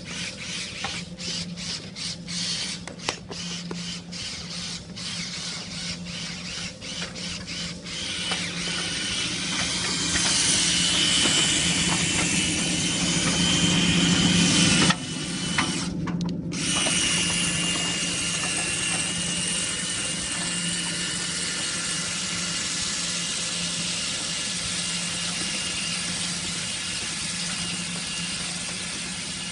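An electric power tool's motor running with a steady hum and a high whine, choppy and stop-start for the first several seconds, then running continuously and louder before dropping suddenly about halfway through.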